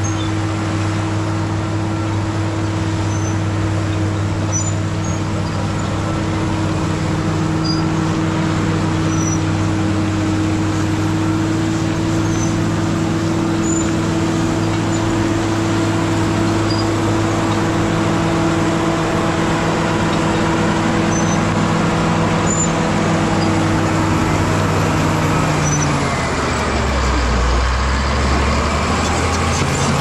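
CAT D7G crawler dozer's diesel engine running steadily. About four seconds before the end its pitch drops and a deeper rumble comes in as the engine slows.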